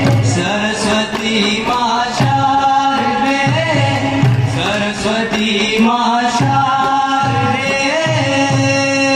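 Live Hindu devotional bhajan music: a sustained melody over a steady drone, with a regular low drum beat.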